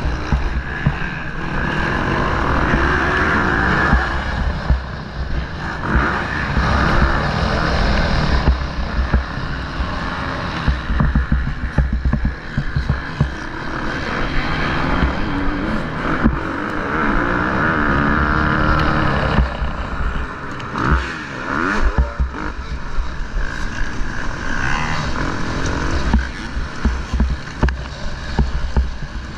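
Motocross bike engine heard from an onboard camera, the revs rising and falling as the rider works the throttle around the track, with a brief throttle cut and re-rev about twenty seconds in.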